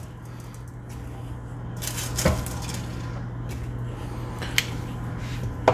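Roasted potato wedges being picked off a foil-lined baking sheet and set onto a ceramic plate: a soft rustle of foil and three sharp clinks, the loudest near the end, over a steady low hum.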